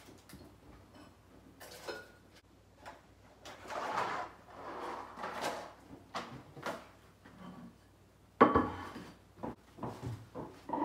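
Groceries being put away on a wooden kitchen counter: packets rustling and items clicking and knocking as they are set down, with one loud knock a little past eight seconds in.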